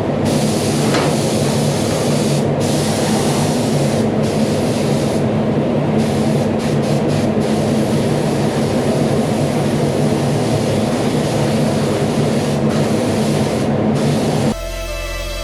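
Steady machine noise with a hiss over a low hum, cutting off abruptly near the end as music begins.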